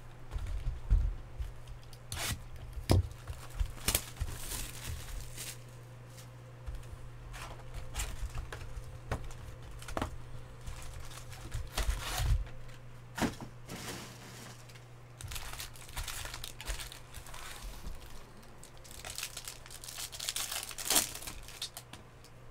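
Hands tearing open and handling a sealed box of Bowman Draft baseball cards, with crinkling and tearing wrapper, cardboard flaps and card packs, and scattered sharp clicks and taps. A longer stretch of crinkling comes near the end. A low steady hum runs underneath.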